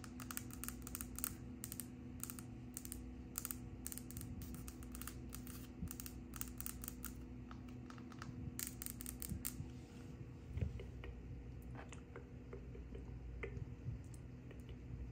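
Long fingernails tapping quickly on a wood-look plank surface, a fast run of sharp clicks that thins to scattered, softer taps about ten seconds in, with one dull thump around then.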